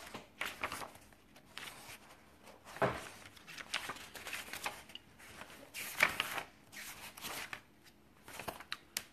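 Paper rustling and soft handling knocks as pages and items are moved about on a tabletop close to the microphone, in short irregular spells, with a sharper knock about three seconds in.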